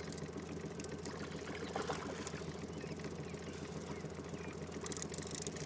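Outboard motor running steadily at slow trolling speed, an even low hum with a few faint short clicks over it.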